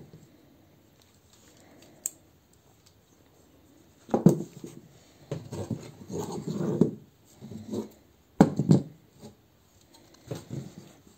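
Small plastic transforming-robot toy figures being handled: one click about two seconds in, then scattered clacks and rubbing of plastic parts from about four seconds on.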